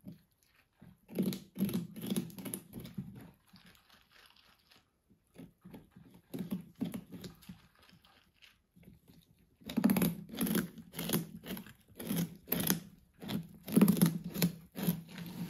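African crested porcupine gnawing into the rind of a whole pumpkin with its incisors: bouts of crunching and scraping with short pauses between. The gnawing gets faster and louder about ten seconds in.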